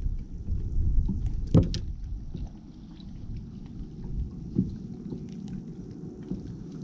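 Wind buffeting the microphone in a low rumble that dies down after about two and a half seconds, with small clicks and clinks of metal tackle being handled as an Alabama rig is rigged by hand; the sharpest click comes about one and a half seconds in.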